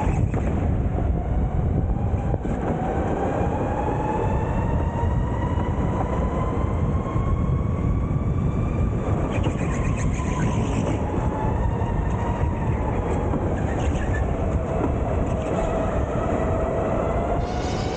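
Electric Sodi go-kart heard from onboard: the motor's whine climbs slowly in pitch through the first half, dips about three-quarters of the way through, then rises again as the kart speeds up and slows for corners. A steady rushing noise of tyres and air runs underneath.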